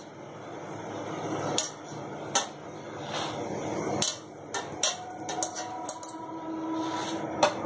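A metal spoon clinking and scraping against an aluminium kadhai as boiled gram-flour dough rolls are lifted out of it, with a few sharp clinks over a steady low hiss.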